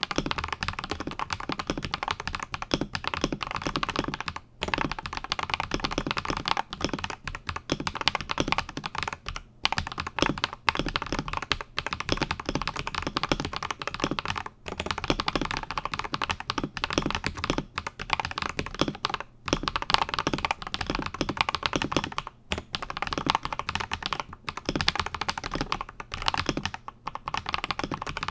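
Steady fast typing on an Akko 5075S mechanical keyboard with Akko Vintage White switches, lubed with Krytox 205g0 and mounted on a polycarbonate plate. Dense runs of key clacks break off in short pauses every few seconds.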